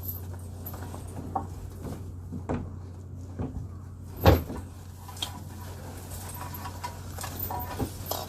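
A steady low machine hum, such as a fishing boat's engine running, with scattered knocks and clunks over it; the loudest thump comes about four seconds in.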